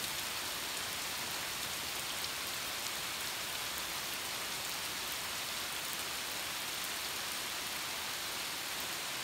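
Steady rain falling: an even hiss with faint scattered drop ticks.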